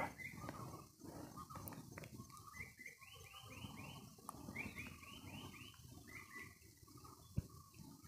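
Faint animal calls: three quick runs of four or five short, falling notes each, over a low background murmur. A single sharp click near the end.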